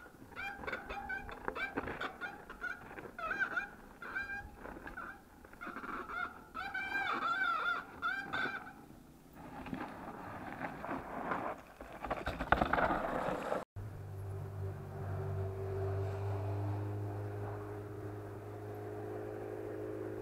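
Mountain bike disc brakes squealing and honking in repeated wavering bursts while braking on a rough downhill trail, from brakes whose front pad is glazed. The squealing gives way to loud rattling and knocking of tyres and bike over roots and rocks. After a cut, a steady low hum takes over.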